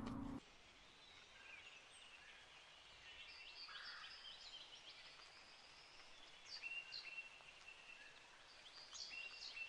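Faint bird calls: short high whistled notes and chirps scattered over a quiet background hiss.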